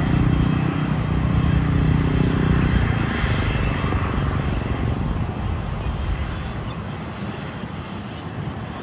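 An airliner's engines as it passes close by, loudest in the first few seconds, then fading steadily as the plane moves away.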